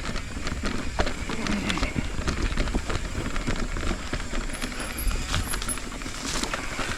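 Mountain bike rolling over a rough dirt trail: tyre noise on dirt and rock with frequent irregular knocks and rattles from the bike.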